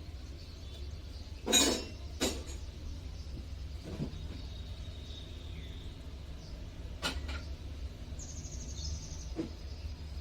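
Two sharp knocks, about a second and a half in and half a second apart, then a lighter click later, over a steady low hum, with a short bird chirp near the end.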